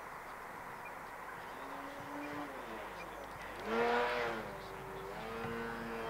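Electric ducted fan of a 3D-printed RC seagull glider whining in flight, its pitch wandering with the throttle; about four seconds in it swells, rising and then falling in pitch over about a second.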